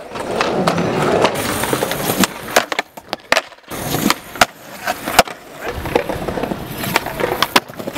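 Skateboard wheels rolling on concrete, broken by a series of sharp clacks as the board strikes the ground and ledges.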